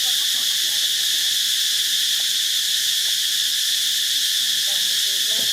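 Steady high-pitched insect chorus, an unbroken buzz, with a brief faint voice near the end.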